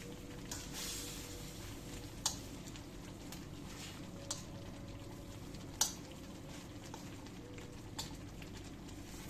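Food cooking in a pan while it is stirred, with a utensil clicking against the pan four times, the third knock the loudest.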